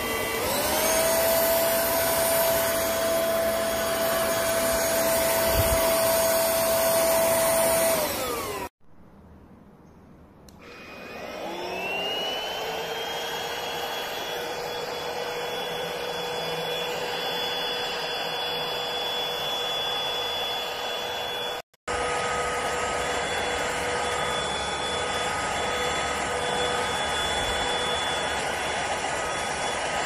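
Airbot Supersonics Aura cordless stick vacuum running with a steady motor whine and the rush of air. About nine seconds in it breaks off abruptly. A second or so later the motor spins up again with a rising whine and settles at a steady pitch.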